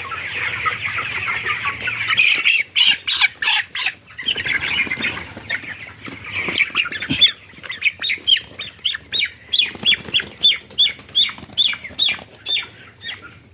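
Broiler chickens about three weeks old: a flock's steady high chirping, then a caught bird squawking in alarm. A flurry of squawks and flapping comes a few seconds in, and from about seven seconds a regular run of loud squawks, about two a second.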